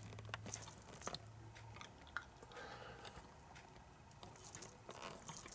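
Faint, scattered clicks and rustles of handling noise as the camera is being moved and repositioned.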